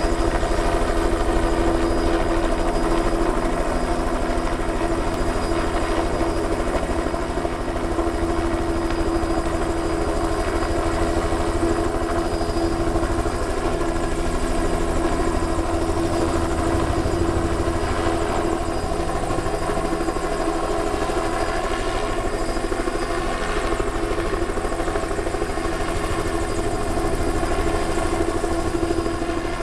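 Bell 206-type two-bladed helicopter hovering: a steady, loud drone of rotor and engine with a strong, unchanging tone running through it.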